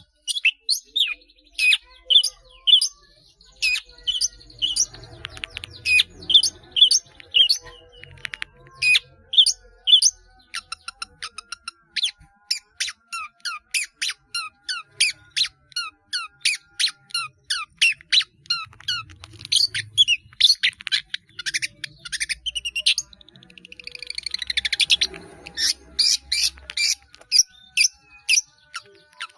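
Long-tailed shrike (cendet) singing a rapid, unbroken string of short, sharp chips and slurred notes, mixing in imitations of other birds' calls; the song turns harsher and more crowded near the end.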